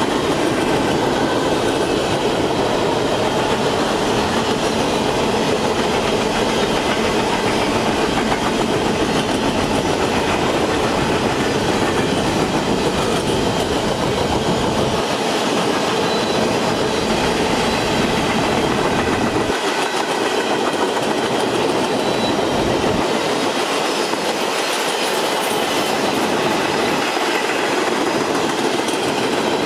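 Covered hopper cars of a grain train rolling past, a steady sound of steel wheels running on the rails.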